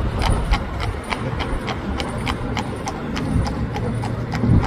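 A carriage horse's hooves clip-clopping on the road in an even rhythm, about four hoof strikes a second, over a low rumble underneath.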